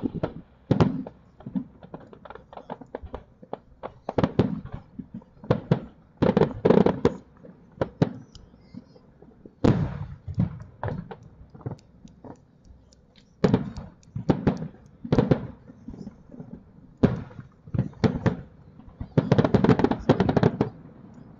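Aerial fireworks shells bursting: repeated sharp bangs, some single and some in quick crackling clusters every second or two, with a dense run of bangs near the end.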